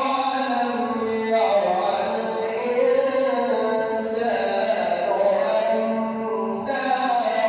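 A man reciting the Quran in a melodic, chanted tajweed style, drawing out long held notes that bend slowly in pitch, almost without a break.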